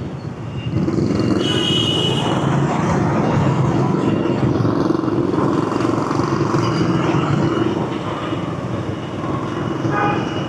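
Steady city street traffic: the rumble of motor vehicle engines and tyres, swelling about a second in and holding steady.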